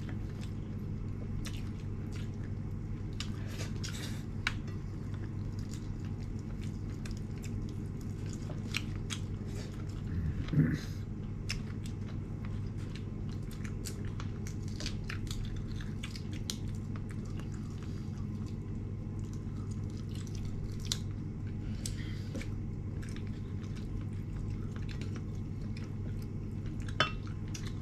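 Someone eating close to the microphone: scattered small clicks and crunches of chewing over a steady low hum, with one louder knock about ten seconds in.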